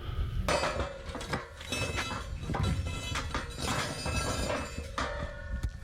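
Metallic clanking and rattling, many short knocks with some ringing, over a low rumble.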